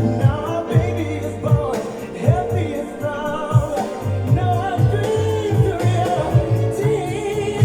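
Music with a singing voice over a bass line and a regular drum beat.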